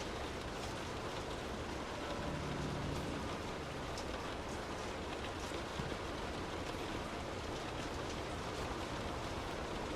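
Steady rain heard from indoors: an even hiss with scattered single drops ticking through it.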